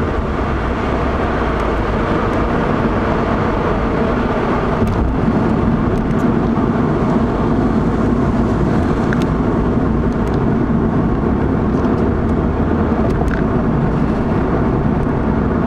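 Steady road noise inside a moving car's cabin: engine and tyre rumble while cruising at an even speed.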